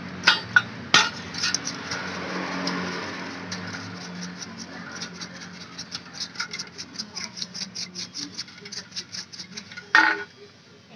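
A paintbrush scrubbing an oily scooter centrifugal clutch shoe assembly, quick scratchy strokes at about four to five a second. A few sharp metal clinks come in the first second, and a loud sharp clink about ten seconds in.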